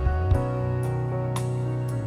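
Soft instrumental background music, sustained notes with a new note struck now and then.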